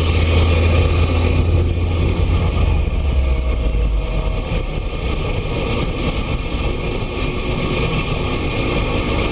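Steady drone of a vehicle on the move, heard from inside the cab: engine and road noise. The low engine note drops about four seconds in.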